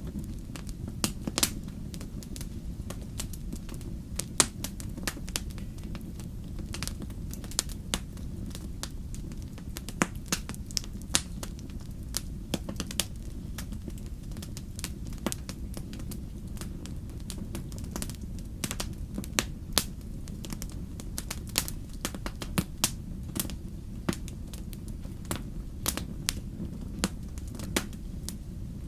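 Wood campfire burning: irregular sharp crackles and pops over a steady low rumble.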